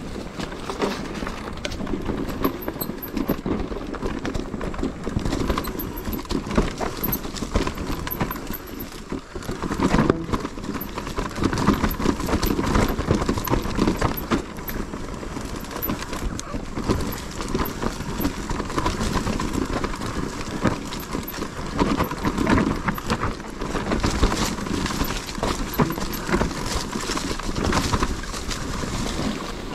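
Mountain bike riding over a rough trail: a constant clatter of knocks and rattles from the tyres on the ground and the bike's frame and chain.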